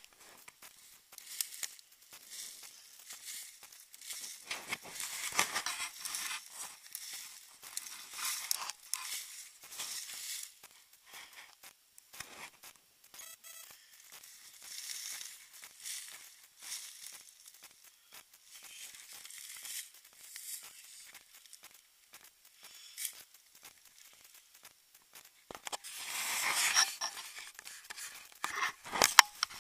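Dry fallen leaves rustling and crunching in irregular bursts as someone moves through them close to the microphone, loudest near the end.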